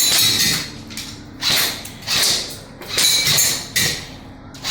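Airsoft guns firing short rattling bursts, about five in a row at uneven intervals.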